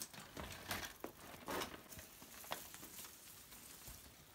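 A bicycle being wheeled and handled: faint, irregular clicks and knocks.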